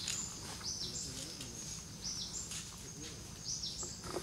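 Forest birdsong in the early morning: a bird repeats a short, high call that slides down in pitch, several times over, often in pairs.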